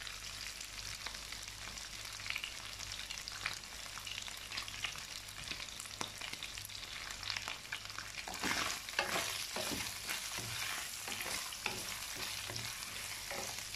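Sliced beef sizzling in hot oil in a nonstick wok, stirred with a wooden spatula; the spatula's scrapes and clacks come more often from about eight seconds in.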